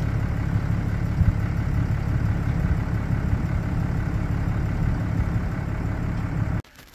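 Vehicle engine running at low speed, a steady low drone, with a single knock about a second in; it cuts off suddenly near the end.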